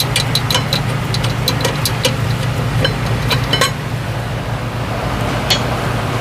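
Metal tools working on a brake caliper bracket: quick scattered metallic clicks and clinks, thick for the first three or four seconds and sparser after, over a steady low hum.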